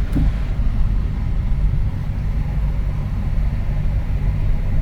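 Stock exhaust and 2.8 V6 engine of a 1996 Audi A6 C4 running at a steady cruise, heard from inside the cabin with a window open: an even low rumble mixed with road noise.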